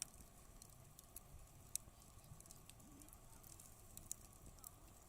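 Wood campfire crackling faintly, with scattered sharp pops and ticks at irregular intervals, a stronger one near two seconds in.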